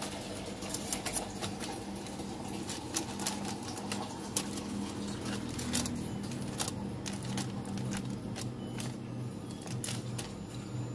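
Metal tongs clicking and scraping on crinkling aluminium foil as chicken wings are turned over one by one, with a steady low hum underneath.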